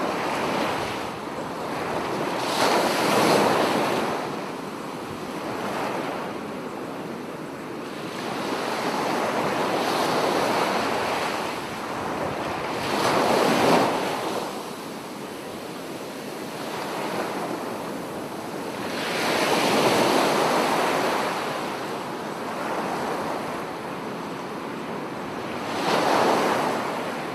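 Ocean surf: waves washing in and drawing back, the rushing hiss swelling and fading every few seconds.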